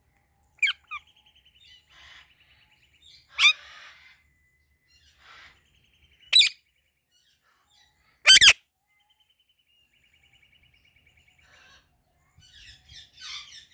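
Indian ringneck parakeets calling: a few sharp, loud screeches, the loudest about eight seconds in, between stretches of softer raspy chirping trills, and a burst of busier chatter near the end.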